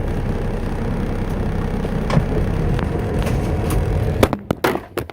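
Pickup truck's engine and road noise inside the cab while driving. About four seconds in, a quick run of sharp knocks and clatters cuts across it and the sound drops away unevenly: the phone doing the recording being dropped.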